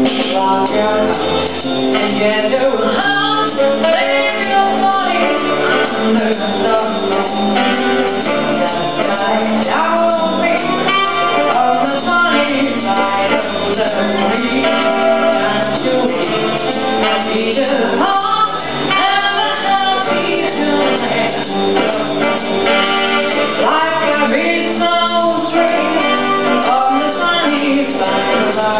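Live concert music: a vocalist singing a song over instrumental accompaniment from a small stage band.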